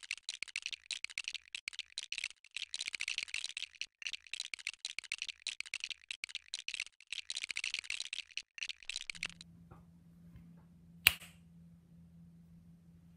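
Rapid, dense clicking and clattering of plastic LEGO bricks being handled and snapped together, stopping about nine seconds in. About two seconds later comes a single sharp click, the loudest sound.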